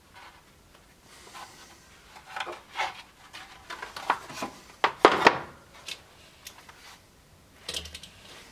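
Thin wooden boards handled on a workbench, sliding and rubbing against each other and knocking together in short clacks. The loudest knocks come about five seconds in, with a few more near the end.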